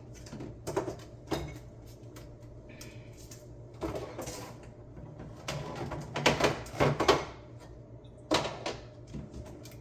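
Food containers and jars being handled and set down in a refrigerator, irregular knocks and clatters with a burst of louder knocks about six to seven seconds in.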